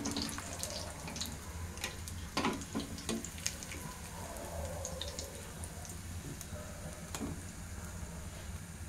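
Hot oil sizzling around mutton resha kebabs deep-frying in a steel kadai, with several short clinks and scrapes of a wire spider skimmer against the pan as the kebabs are scooped out, most of them about two and a half to three and a half seconds in.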